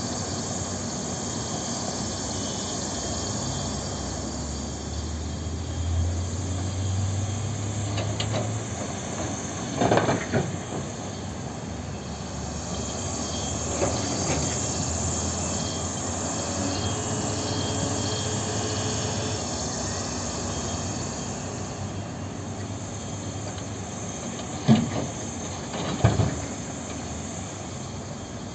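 Cat 324D excavator's six-cylinder diesel engine running steadily under digging and loading work, with a few sharp knocks of the bucket and rock: one about ten seconds in and two louder ones near the end.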